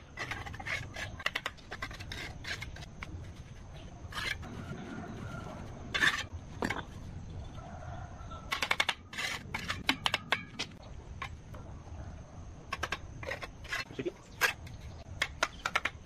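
Bricklaying by hand: a steel trowel tapping and scraping on red clay bricks and wet cement mortar as bricks are set into place. Sharp clicks and knocks come irregularly, bunched in quick runs about halfway through and again near the end.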